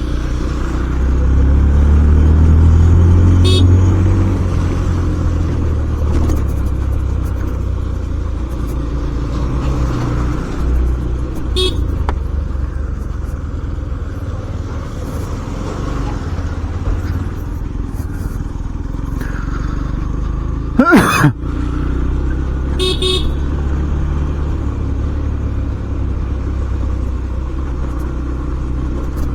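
Yamaha FZS-V4's 149 cc single-cylinder engine running under way, a steady low hum that swells in the first few seconds. About two-thirds through, a horn gives a short loud blast, the loudest sound here.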